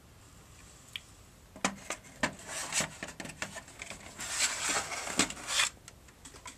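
Irregular clicks, knocks and rustling close to the microphone, starting about a second and a half in and stopping about a second before the end.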